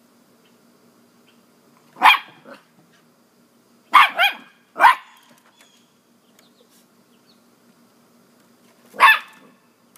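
Corgi barking up at a cat: five sharp barks, one about two seconds in, three in quick succession a couple of seconds later, and a last one near the end.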